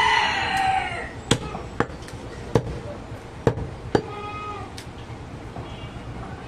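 Heavy cleaver chopping goat meat and bone on a wooden log chopping block: about six sharp strikes, half a second to a second apart. Over the first second a loud, high, wavering call sounds, with a fainter one near the middle.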